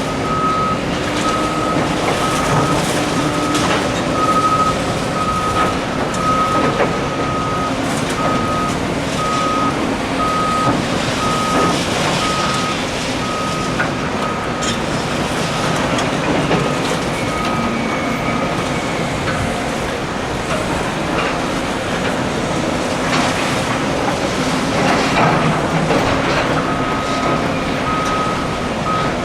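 Reversing alarm on heavy construction equipment, bulldozers at work, beeping about once a second. It stops about two-thirds of the way through and starts again near the end. Under it runs the machines' engine noise, with occasional knocks.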